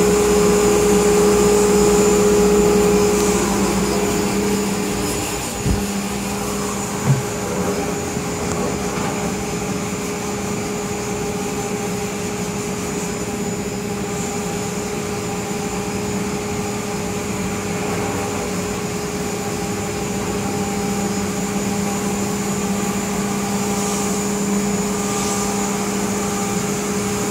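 Gerber Sabre 408 CNC router planing its spoilboard: the spindle runs with a steady high whine over the rushing of the dust collector as the surfacing cutter passes over the board. The sound drops slightly about five seconds in, and there are two brief knocks around six and seven seconds in.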